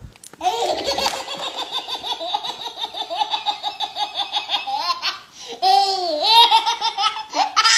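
Baby's belly laugh: a long run of rapid, even ha-ha bursts starting about half a second in, a short break around five seconds, then more laughing with high rising and falling squeals.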